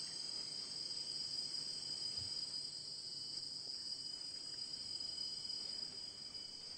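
Crickets chirping in a steady, continuous chorus, a high-pitched trilling that does not change through the moment.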